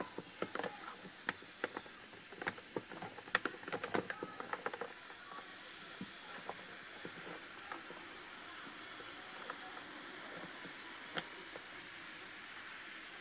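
Aluminium and caustic soda reacting in water, the frothing liquid fizzing with a steady hiss as hydrogen is given off. Irregular sharp clicks and taps run over it, many in the first five seconds and fewer after.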